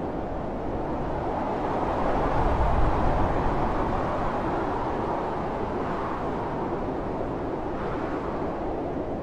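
Blizzard wind blowing steadily as a low rushing noise, with a gust swelling to a deep rumble about two to three seconds in.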